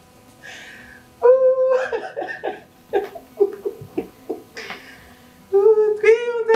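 A high-pitched voice laughing and calling out, in a few short stretches with pauses between.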